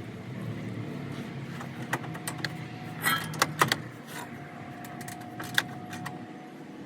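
Hand tools and metal parts clinking and knocking, with a cluster of sharp clanks about three seconds in and another single clank a couple of seconds later.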